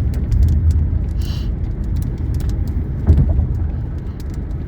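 Car interior noise: a steady low rumble, with scattered faint ticks and a brief thump about three seconds in.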